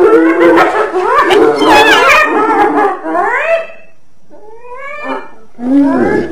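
Spotted hyena calling: a dense run of overlapping calls for the first couple of seconds, then several short calls that rise sharply in pitch, separated by brief pauses.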